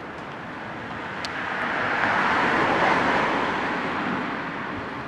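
A road vehicle passing by: a smooth rush of noise that swells to a peak about halfway through and then fades away.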